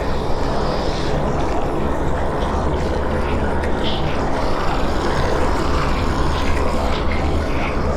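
Demonic horror sound effect: a dense, steady low rumbling drone, with faint short snarls or voice-like sounds now and then above it.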